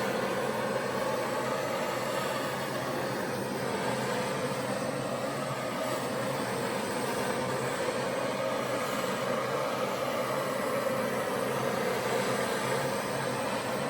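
Handheld torch flame burning steadily with an even hiss, passed over freshly poured acrylic paint to bring up cells.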